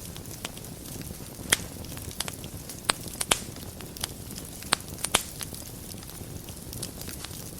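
Wood fire burning in a fireplace: a steady low rumble with irregular crackles and a handful of sharp pops.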